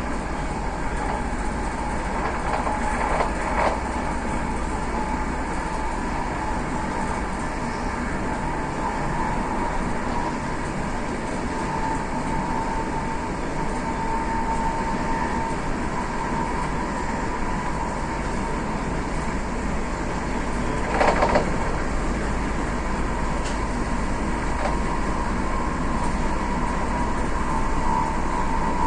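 Passenger train running steadily, heard from inside a carriage, with a steady whine near 1 kHz over the running noise. There is a brief louder knock about 3 s in and another about 21 s in.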